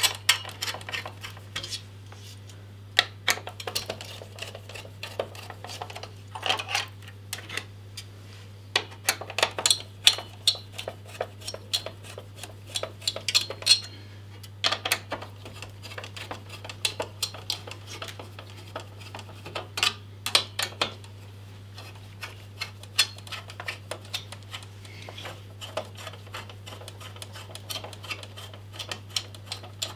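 Screwdriver undoing the mounting screws of a stock AMD CPU cooler: a long run of irregular small metallic clicks and scrapes over a steady low hum.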